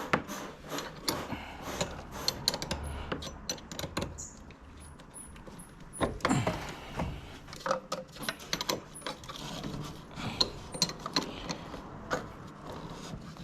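Hand tools clinking and clicking on metal as a van battery's terminals and clamp are undone for removal: a scatter of irregular light metallic clicks, with a louder knock about six seconds in.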